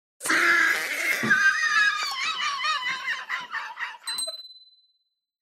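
High-pitched outro sound effect with a wavering pitch over the end card. About four seconds in comes a mouse click on the subscribe button, followed by a short notification-bell ding that fades out.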